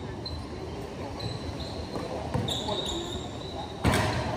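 Basketball dribbled on a concrete court, with sneakers squeaking on the painted floor. Near the end a sudden loud clatter as a shot strikes the backboard and rim.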